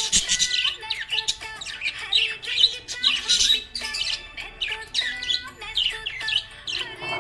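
Budgerigar chirping and warbling: a constant stream of quick, high chirps and chatter.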